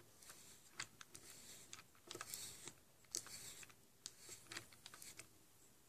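Faint, irregular scratching and small clicks of a pinewood derby wheel's inside edge being rubbed into a pile of graphite powder on a metal block, working the graphite into the edge.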